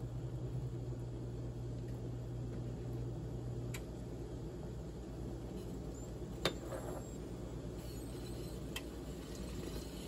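Pot of mugwort soup bubbling at a steady boil, with a spoon and ladle knocking against the pot three times, the loudest about six and a half seconds in.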